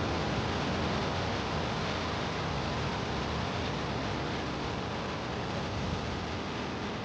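Steady rushing noise of sea surf and wind, with no single wave break standing out.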